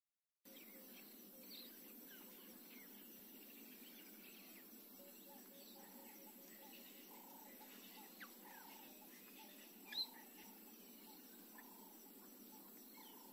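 Faint field ambience: a low steady hiss with scattered short bird chirps, one louder chirp about ten seconds in, after a brief moment of dead silence at the start.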